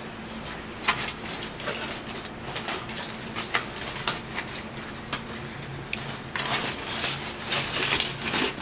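Hands tearing imitation crab sticks into shreds and dropping them into a plastic bowl: soft, irregular rustling and patter, over a steady low hum.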